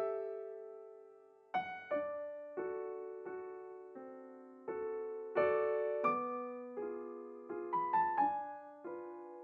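Background piano music: gentle notes and chords struck about every three-quarters of a second, each ringing and fading.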